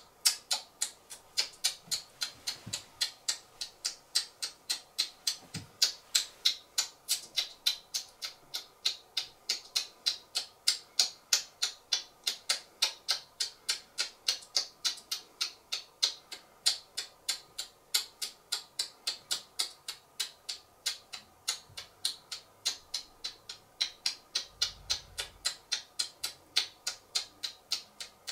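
Typewriter keys striking one after another in an even run, about three to four clacks a second.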